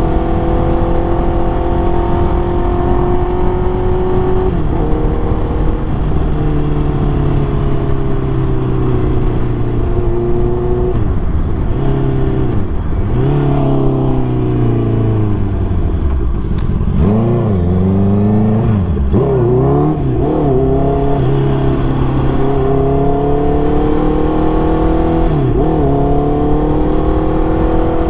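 Honda CBR650R's inline-four engine through a MIVV MK3 full exhaust, under way: the revs climb and fall repeatedly with gear changes, with a slowdown near the middle before the engine picks up again.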